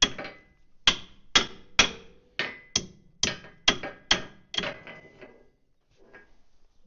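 Hammer blows on steel, about ten sharp ringing strikes at roughly two a second, driving at a seized dowel pin in a Caterpillar D4D bulldozer's track assembly. The blows grow weaker and stop about five seconds in.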